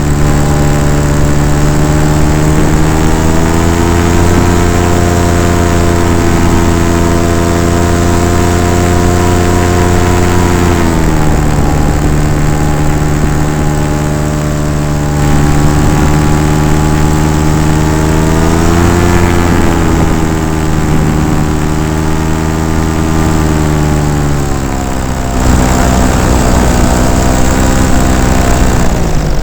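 Paramotor engine and propeller running loud and close, its pitch rising and falling several times as the throttle is opened and eased back.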